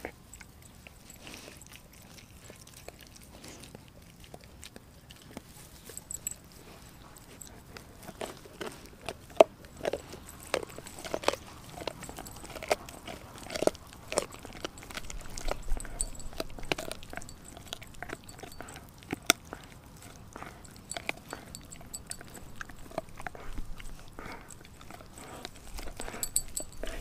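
Doberman chewing a raw frozen pig's foot: irregular crunches and cracks of teeth on bone and frozen meat. They are sparse at first and come thick from about eight seconds in.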